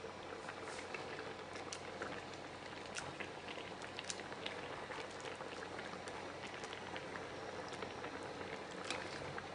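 A basin of thick tomato-and-pepper adjika simmering, giving a steady bubbling hiss with irregular sharp pops as thick bubbles burst.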